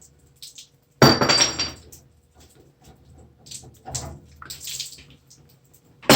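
Metal plumbing tools and fittings being handled: a sharp metallic clatter with a brief ring about a second in, then lighter knocks and clinks.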